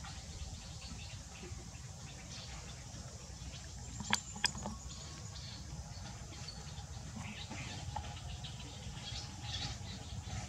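Faint, high, short squeaks of a baby monkey over a steady low rumble, with two sharp clicks about four seconds in.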